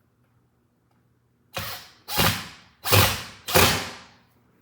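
Cordless impact driver run in four short trigger bursts, driving small assembly bolts into a particleboard cabinet wall with light torque so as not to strip the hole.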